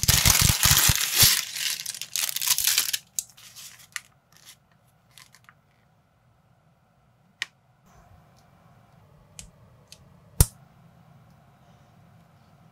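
Thin plastic polybag crinkling loudly as it is handled and its LEGO pieces are tipped out, for about three seconds. After that come a few scattered sharp clicks of small plastic parts, the loudest about ten seconds in.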